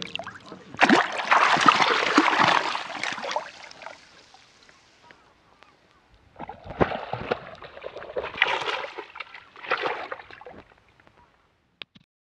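Water splashing and sloshing in several noisy bursts, the longest about a second in.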